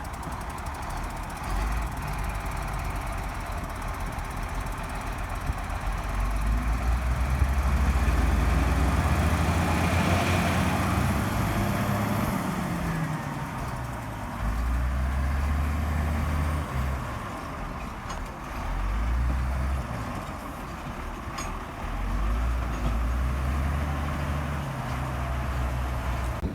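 Heavy diesel machinery engines working under load, revving up and easing off several times as the revs glide in pitch, loudest from about six to twelve seconds in. The machines are a CAT 320D excavator and a stuck LiuGong road roller being pulled out.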